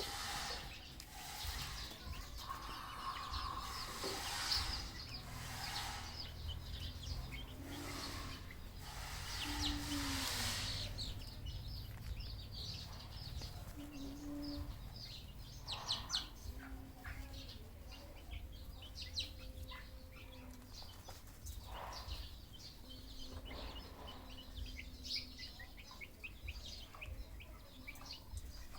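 Birds chirping and calling, many short high chirps throughout, over a steady low rumble.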